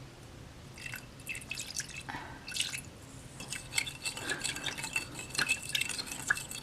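Water dripping and trickling into a small container of purple glue as it is topped up for slime, with scattered small splashes and light clinks.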